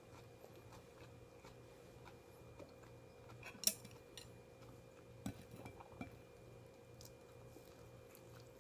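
Small, scattered clicks and clinks of tableware as someone eats. The sharpest tap comes about three and a half seconds in, with a few more a couple of seconds later, over a steady low hum.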